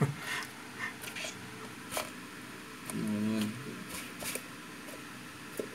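Asian water monitor swallowing a frog inside a plastic tub: a few sharp clicks and taps from its jaws and claws against the plastic, with a brief voice-like wavering call about three seconds in.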